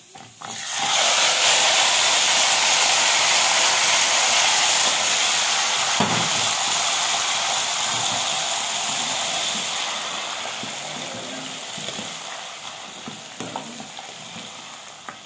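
Tadka of hot desi ghee with fried garlic and ginger poured onto sarson ka saag in a pot, hissing loudly as it hits the saag. The sizzle starts about a second in and slowly dies down over the last few seconds, with a single knock about halfway through.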